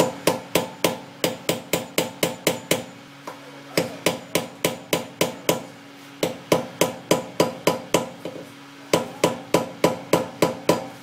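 Hammer striking a steel punch held against a Honda S2000's staked front axle nut, metal on metal. Four quick runs of sharp strikes, about four or five a second, with short pauses between.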